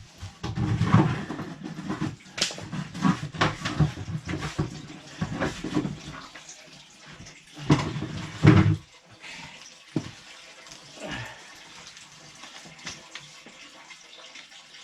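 Water splashing and spilling while a sump pump's discharge line and check valve are handled, with irregular knocks and clunks of the fittings. It is busiest for the first nine seconds or so, then settles to a few faint clicks.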